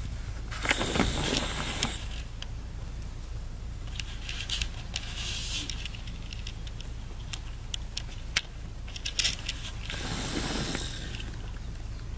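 Young rabbit nibbling and chewing greens close to the microphone: quick crisp crunching clicks, with two spells of rustling grass and twigs about a second in and near the end, over a low steady hum.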